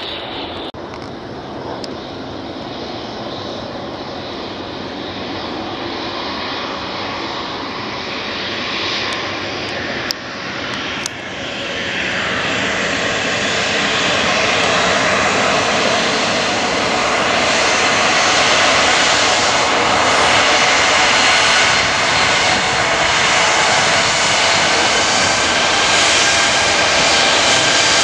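Turbofan engines of a twin-engine regional jet airliner running on the runway, with a steady high whine over the engine rush. It grows louder from about halfway as the jet comes closer.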